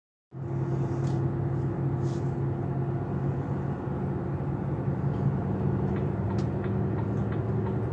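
Vehicle engine running steadily at cruise with road noise, heard from inside the cab: a low, even hum that starts abruptly just after the beginning.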